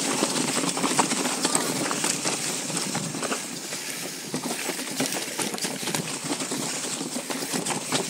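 Mountain bike descending a rough downhill trail at speed: tyres rumbling over the ground and the bike clattering with frequent irregular knocks.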